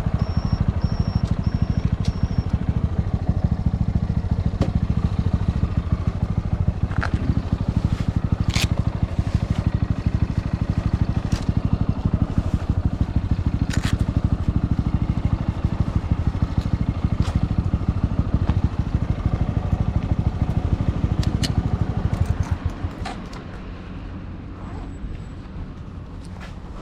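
Motorcycle engine running steadily with an even low firing pulse, then switched off about 22 seconds in, leaving a few light clicks and knocks.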